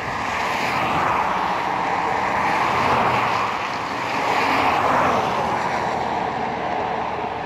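A steady outdoor rushing noise that swells and eases a few times, with no distinct knocks or tones.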